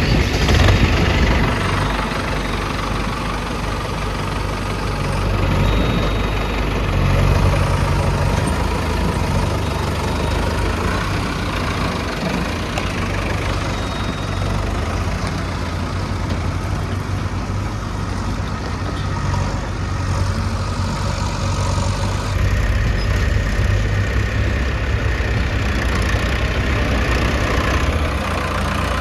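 Heavy diesel engine running steadily with a low rumble, growing louder a few times as it takes load.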